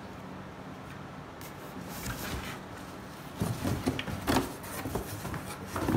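Cardboard box flaps rustling and scraping as a wall-box EV charger is handled and lifted out of its shipping box, with several knocks against the cardboard in the second half.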